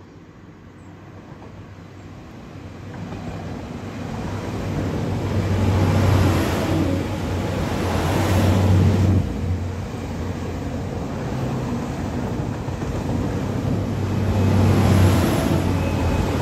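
Hitachi Intercity Express Train approaching and passing close below. Its engines give a steady low hum under a rush of wheel and rail noise that swells and fades several times as the coaches go by.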